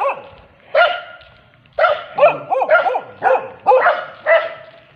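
Dogs barking: a single bark about a second in, then a quick run of barks from about two seconds in, roughly two to three a second.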